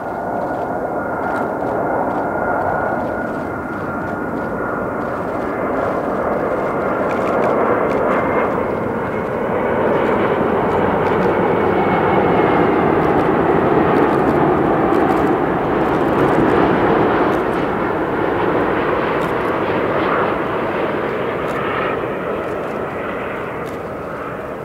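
Airbus A380-841's four Rolls-Royce Trent 970 turbofan engines on landing approach: a steady jet rush with a thin whine on top. It grows louder to a peak about halfway through as the airliner passes closest, then eases off as it heads away towards touchdown.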